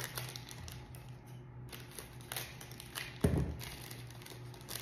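Small clicks and rustles of plastic jewelry packets and earring cards being handled on a table, with one louder dull thump about three seconds in.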